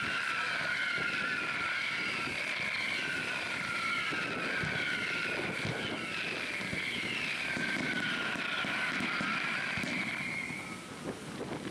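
Whistling fireworks: many overlapping shrill whistles, each falling slightly in pitch, set off one after another and stopping about ten seconds in. Faint pops and crackle and wind on the microphone lie beneath.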